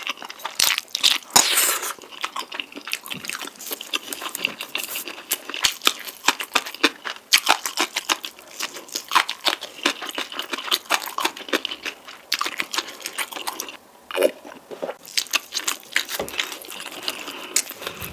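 Close-miked eating of a spicy noodle meal: chewing and crunchy bites in a dense, uneven run of short sharp sounds, with a brief pause about fourteen seconds in.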